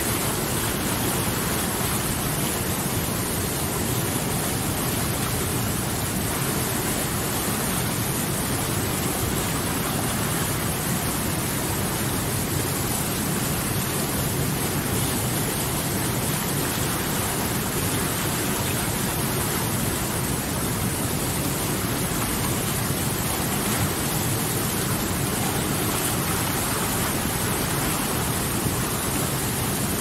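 White water of a fast mountain stream rushing over boulders, a steady, unbroken rush.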